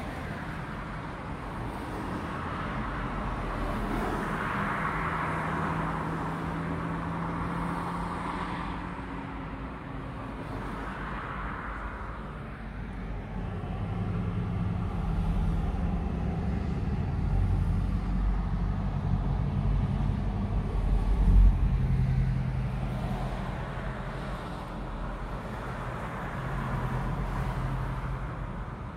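Cars and pickup trucks passing on a street one after another, their tyre noise and engines swelling and fading. A low engine rumble builds to the loudest point about twenty seconds in.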